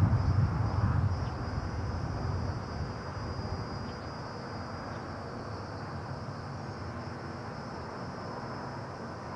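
Steady high insect chorus over a low rumble. The rumble is loudest in the first second or so, then settles to an even background.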